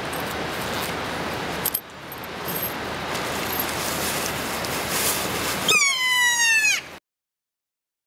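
Kea (Nestor notabilis) calling: one loud, high, drawn-out cry that falls slightly in pitch over about a second, near the end, over a steady background hiss.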